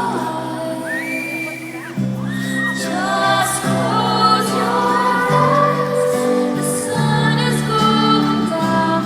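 A woman's voice singing a song live over sustained instrumental accompaniment.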